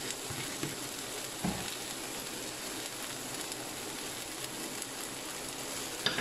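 Steady sizzling of onions and green chillies frying in oil in a pan with boiled potato pieces, the pan still on the heat. There is a soft knock about a second and a half in.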